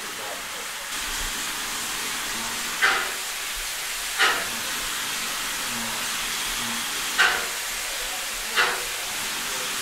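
Steady hiss of steam from standing steam locomotives, broken by four short, sharp louder bursts that come in two pairs, each pair about a second and a half apart.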